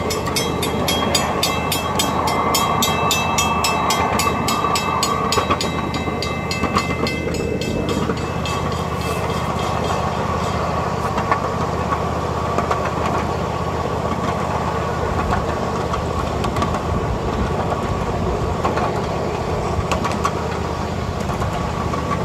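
Miniature ride-on train running along its track, with a steady rumble and rattle from the moving cars. A rapid, even clicking at about four or five a second runs through roughly the first eight seconds, then fades into the rumble.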